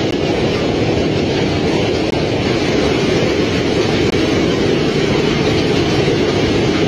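Heavy hailstorm: dense hail driven by strong wind beats down without a break, a loud, steady rushing din.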